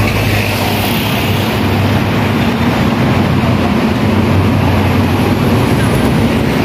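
Steady city street traffic noise with a constant low engine hum.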